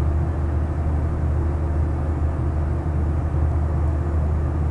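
Steady low hum and rumble of background noise, with no distinct sounds standing out.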